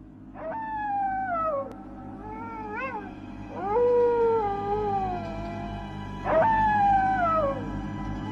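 Long drawn-out howls, each jumping up in pitch and then sliding slowly down, about every three seconds, over a steady low droning hum.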